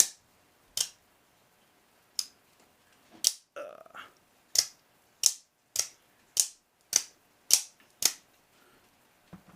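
MTN Forged Recon out-the-front automatic knife being fired open and retracted over and over. Each actuation gives a sharp metallic snap, about eleven in all, coming faster toward the end.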